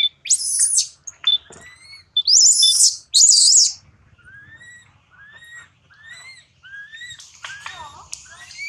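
Baby macaque crying: three loud, shrill squeals in the first few seconds, then a string of shorter, quieter calls, about two a second, each rising and falling in pitch.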